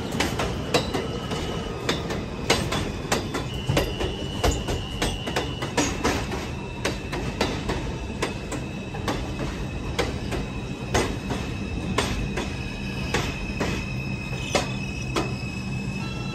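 Subway train running on elevated steel track as it pulls out of a station. Irregular clacks of wheels over rail joints, a thin high wheel squeal that comes and goes, and a low steady hum that grows stronger about halfway through.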